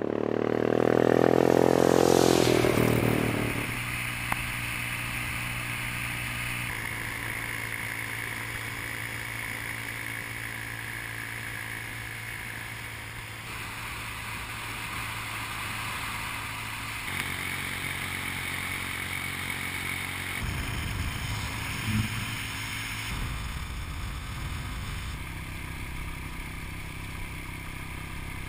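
A motorcycle engine rises in pitch and loudness as the bike passes close by, then falls away. After that come steady motorcycle engines running at cruising speed with wind rush, heard from a bike-mounted camera, with a brief knock near the end.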